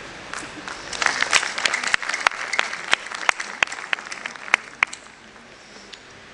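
Audience applauding, swelling about a second in and dying away into a few scattered claps about five seconds in.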